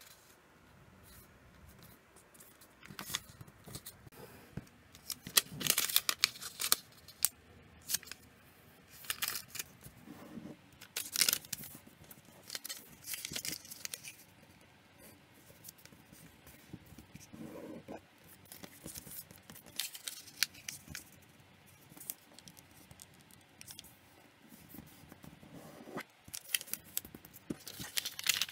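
A sheet of origami paper rustling and crinkling as hands fold and crease it, in irregular short bursts.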